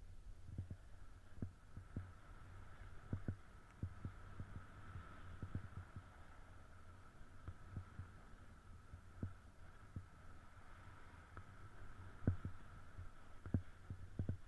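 Muffled, irregular low thumps as a snowboard rides over soft, bumpy snow, over a faint steady hum; the loudest thump comes about twelve seconds in.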